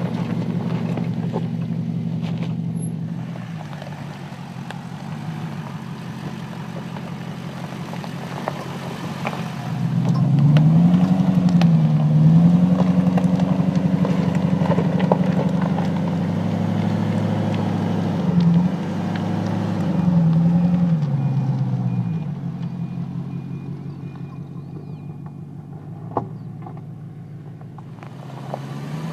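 2015 Porsche Cayenne S's 3.6-litre twin-turbo V6 engine driving slowly over rough dirt. It runs steadily at first, then gets louder with its pitch rising and falling several times as the throttle is worked, and eases back to a quieter, steady note near the end. There is one sharp click near the end.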